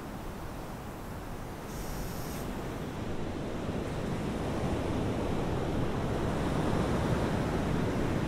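Sea waves washing onto the shore, with wind on the microphone; the surf swells gradually louder.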